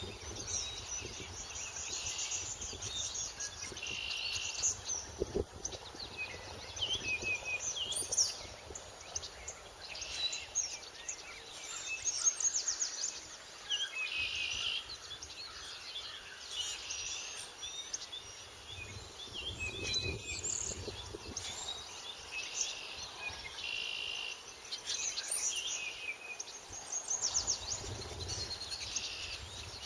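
Morning chorus of many songbird species singing at once: overlapping high trills, whistles and chirps follow one another with hardly a break.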